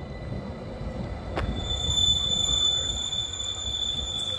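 Metre-gauge MBC electric train pulling away around a curve: a low rumble from the wheels on the rails, then, about a second and a half in, a steady high-pitched wheel squeal that holds. A single sharp click comes just before the squeal starts.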